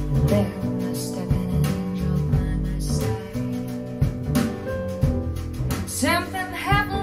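Recorded music playing through a pair of JBL L100 Classic 75th loudspeakers, picked up by microphones in the listening room: a deep bass line under plucked instrument notes, with a voice starting to sing about six seconds in.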